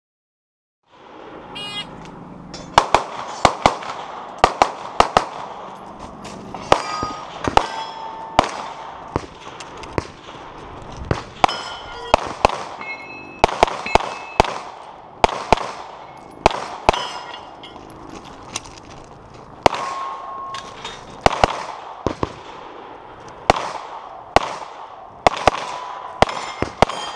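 A shot-timer beep about a second and a half in, then a run of rapid pistol shots, many in quick pairs, with steel targets ringing when hit.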